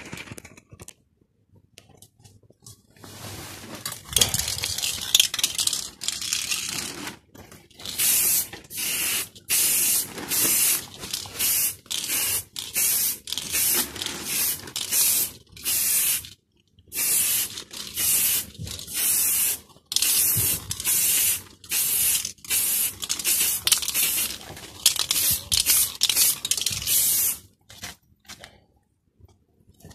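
Aerosol spray can of gloss black paint hissing in a long run of short bursts with brief gaps between them, laying down the first coat. The spraying starts about three seconds in and stops shortly before the end.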